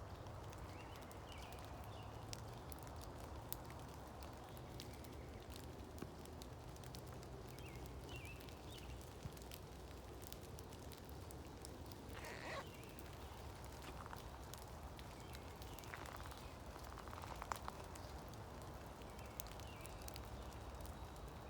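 Woods in light rain: a steady soft hiss of rain with scattered drip ticks and a few faint bird chirps.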